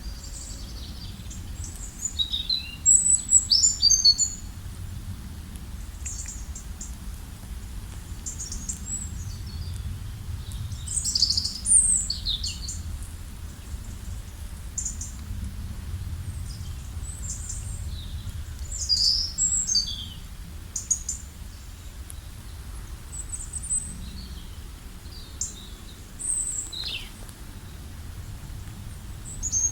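Songbirds chirping and calling, short high-pitched phrases and trills every second or two, loudest in a few clusters, over a steady low background rumble.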